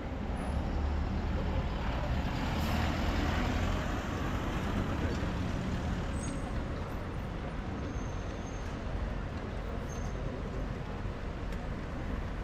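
City street traffic: a steady low rumble of engines and tyres, swelling a couple of seconds in as a heavy vehicle passes close by.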